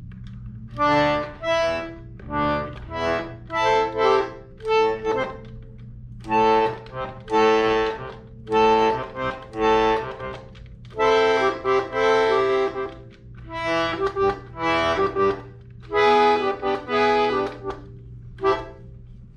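Russian Tulskaya (Tula) button accordion played in short bursts of chords, some under a second and some a couple of seconds long, with short pauses between, as the player tries out the buttons and bellows.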